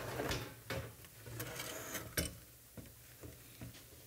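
Aluminum frame pieces and a plastic plate being shifted about on a wooden workbench: light knocks, clicks and scrapes, the clearest right at the start and about two seconds in.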